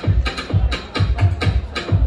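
Backing music for a stage show, with a steady heavy bass beat of about two thumps a second.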